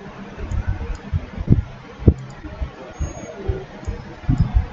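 Low thumps, loudest about a second and a half in, twice near two seconds and again near the end, with a few faint computer-mouse clicks over a steady low hum.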